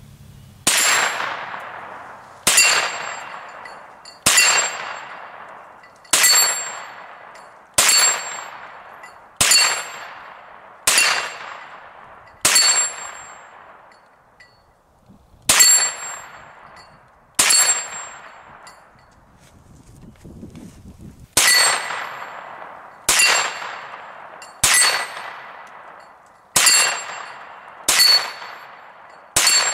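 Hi Point 9mm semi-automatic carbine fired in slow single shots, about sixteen in all, most a second and a half to two seconds apart, with two longer pauses midway. Each shot is followed by a metallic ring that dies away slowly.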